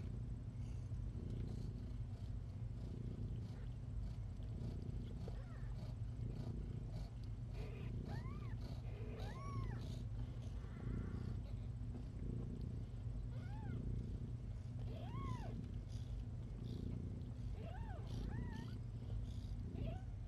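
Newborn kittens mewing: a series of about seven short, high-pitched cries, each rising and falling in pitch, starting about eight seconds in, over a steady low hum.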